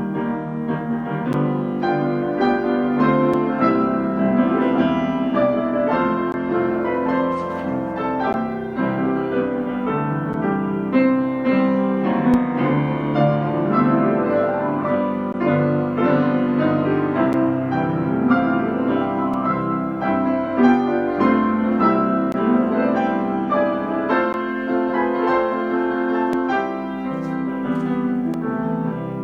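Piano music played continuously, with many notes sounding at once.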